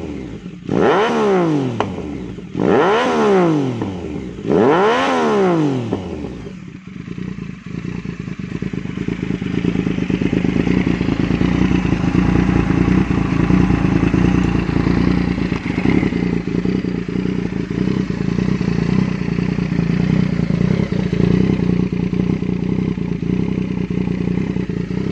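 Yamaha MT-09's three-cylinder engine through an SC Project aftermarket exhaust, revved sharply three times in the first few seconds, each rev rising and falling in pitch. It then idles steadily in neutral.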